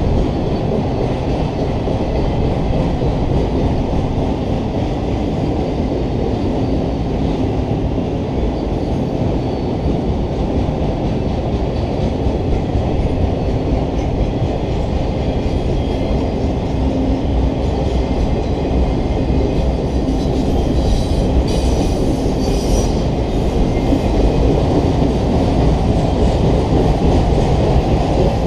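Autorack freight cars rolling past on steel wheels: a steady, loud rumble of wheels on the rails, rising slightly near the end.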